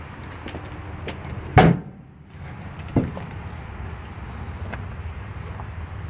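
A loud thump, then a lighter knock about a second and a half later, over a steady low background noise.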